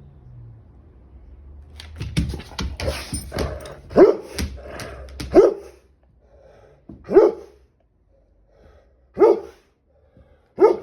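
Chocolate Labrador retriever barking. After a couple of seconds of quiet, a quick run of short sharp sounds gives way to single barks spaced about one and a half to two seconds apart.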